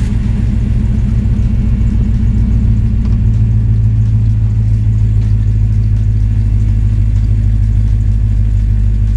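Vehicle engine running at a steady low drone while driving, towing a boat.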